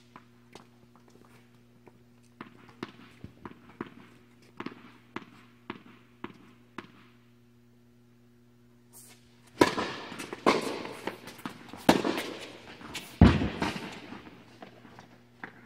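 Tennis ball struck hard on a serve about nine and a half seconds in, followed by several more loud racket hits and ball bounces, each with a long echo in the indoor tennis dome. Before the serve, a run of light regular taps; a steady low hum runs underneath.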